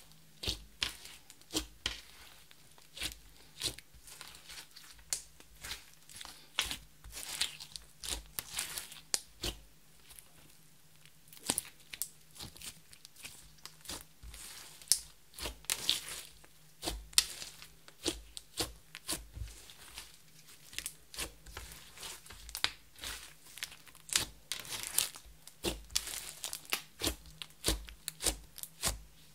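Clear slime mixed with crushed makeup powder and glitter being kneaded, folded and pressed by hand: an irregular run of short sticky clicks and crackles, several a second, as it stretches and presses against the table.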